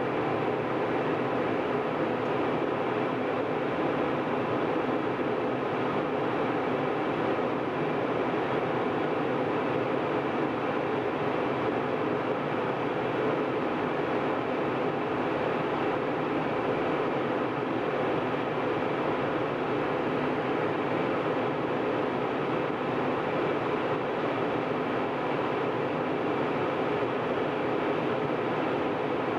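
Steady cabin drone of a jet airliner in cruise flight: engine and rushing airflow noise, even throughout, with a faint steady hum of tones in it.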